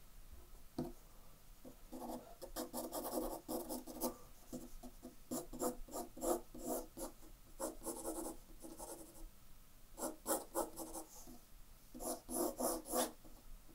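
Graphite pencil hatching on drawing paper: runs of quick back-and-forth scratching strokes with short pauses between them, laying in shadow tone.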